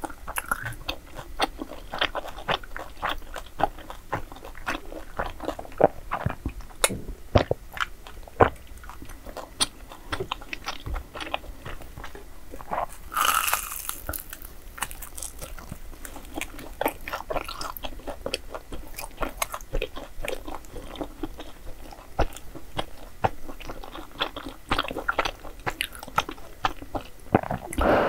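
Close-miked eating: a person biting and chewing crisp-fried dessert food, with many small irregular crunches and wet chewing clicks. A brief louder noisy burst comes about halfway through.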